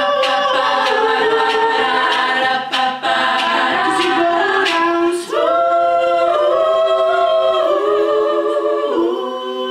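Women's a cappella group singing in harmony around a lead soloist, with a sharp percussive beat through the first half. About five seconds in, the voices move into long held chords.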